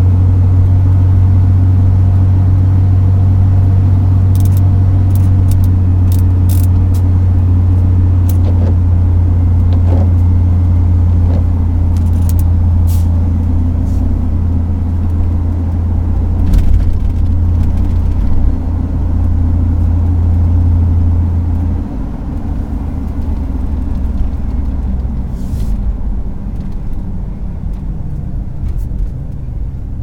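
Ford F-150 pickup's engine and exhaust drone heard from inside the cab while cruising, a steady low hum. About two-thirds of the way in it drops lower and quieter as the truck eases off and slows. A few sharp ticks sound now and then.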